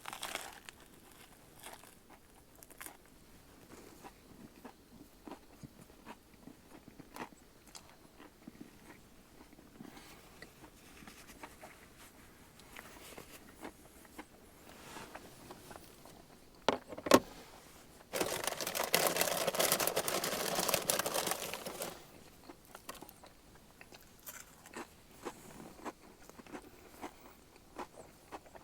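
Crisp crunching and chewing of a fried bologna sandwich layered with barbecue chips and crunchy onion, as small sharp crunches throughout. A louder rush of noise lasts about four seconds a little past the middle.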